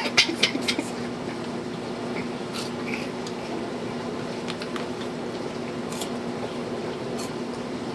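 Crunchy snack chips being bitten and chewed: a quick run of sharp crackles in the first second, then a few scattered crunches, over a steady low hum.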